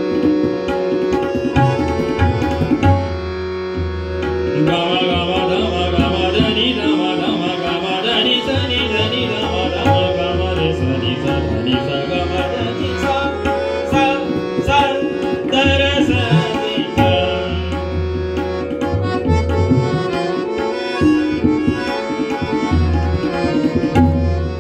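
Tabla playing a steady rhythm under the held reed chords of a harmonium. From about five seconds in to near eighteen seconds, a male voice sings a Hindustani devotional melody with ornamented, bending notes over them.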